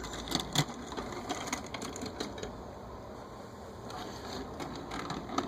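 Light, irregular clicks and taps of diecast toy cars being handled on a surface, thickest in the first couple of seconds and then more scattered.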